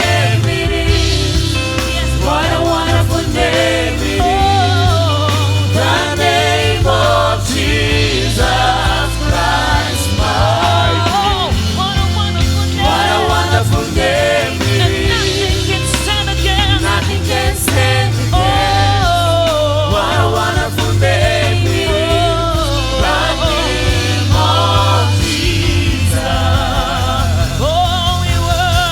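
Live gospel worship music: singers holding drawn-out, wavering vocal lines without clear words over a band with a steady bass line.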